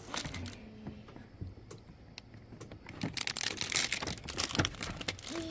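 Hard plastic toy kitchen parts clicking and knocking against each other as they are handled and fitted together, with a quick run of clicks in the second half.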